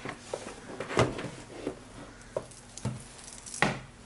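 Paper documentation being handled: pages and binder sheets rustling, with a few soft knocks, the loudest about a second in and again near the end.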